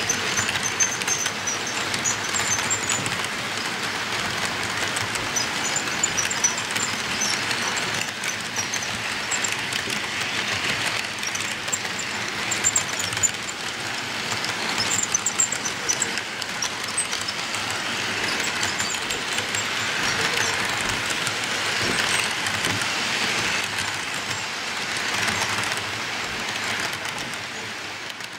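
HO scale model freight cars rolling past on sectional track: a steady rolling rattle of the wheels with sharp clicks now and then. It fades near the end as the last car goes by.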